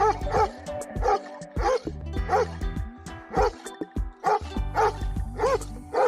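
A dog barking repeatedly, short arched barks about one to two a second, over background music.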